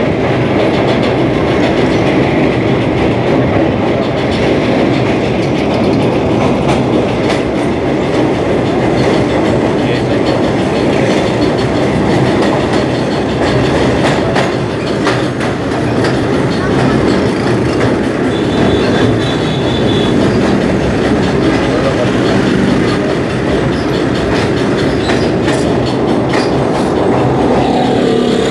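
Train running at speed, heard from aboard: a steady loud rumble with the wheels clattering over the rails.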